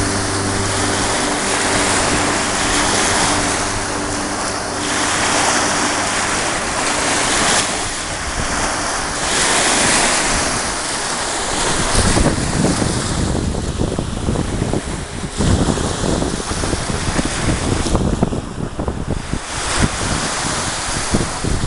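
Sea waves surging and washing ashore in repeated swells, with wind buffeting the microphone, heaviest in the second half. A faint steady hum fades out in the first few seconds.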